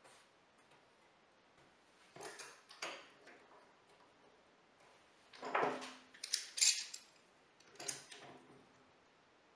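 Steel bar clamps being set on a plywood strip and tightened: metal clanks, clicks and rattles in several short clusters. The loudest come about five and a half to seven seconds in, one with a brief ring.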